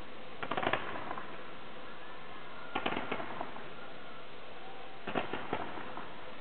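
Distant fireworks: three clusters of quick pops and crackles, a little over two seconds apart, over a steady hiss.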